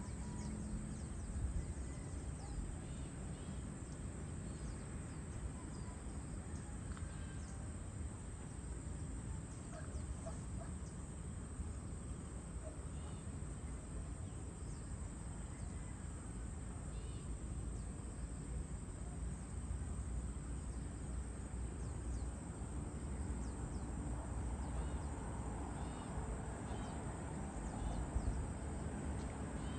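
Evening outdoor ambience: a steady high-pitched insect drone with scattered faint bird chirps, over a low continuous rumble.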